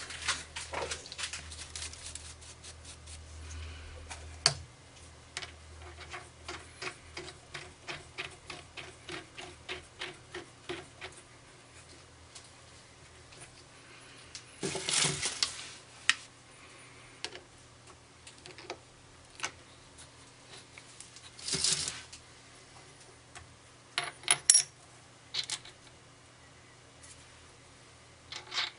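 A run of light, rapid clicks and taps, thinning out after about ten seconds, with a few short rasping bursts around the middle.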